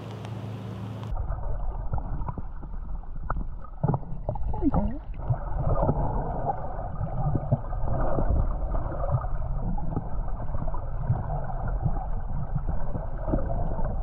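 Muffled underwater gurgling and water movement from snorkeling, with scattered clicks and knocks, beginning abruptly about a second in.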